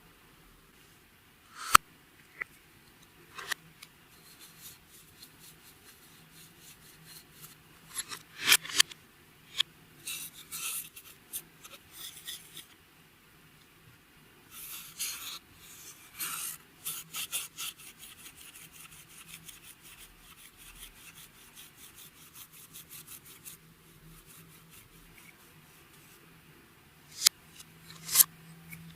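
Clear slime being squished and folded by hand, with sharp clicks and crackling pops of trapped air; midway comes a quick run of small clicks.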